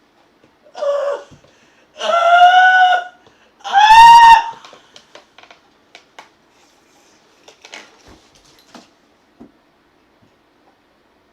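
Three loud, high-pitched vocal shrieks in quick succession, each rising then falling a little in pitch, the last two the loudest. After them only faint scattered clicks.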